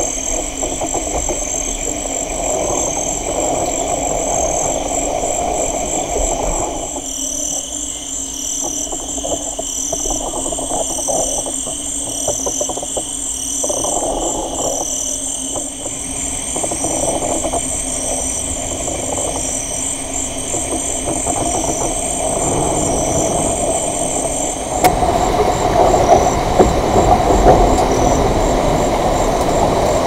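Amazon rainforest soundscape: rows of rhythmic, high-pitched chirping calls over a steady low hum and a rough, noisy layer in the lower middle. The mix changes abruptly about seven seconds in, when the lower layers drop away, and again near the end, when it grows louder with sharper peaks.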